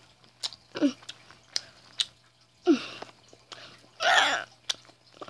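A boy chewing sour candy, with wet mouth clicks and smacks, two short falling vocal sounds, and a loud breathy hiss about four seconds in as he reacts to the sourness.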